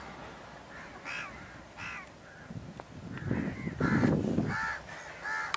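Crows cawing: a few spaced harsh calls, then a quicker run of about four caws from about three seconds in, over a low rumbling noise.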